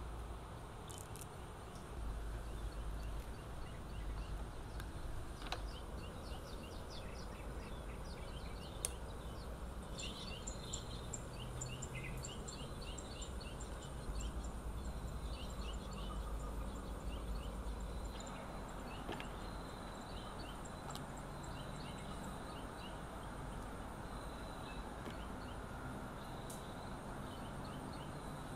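Outdoor ambience: small birds chirping in short repeated calls over a steady rushing hiss, with a low rumble through much of the first half.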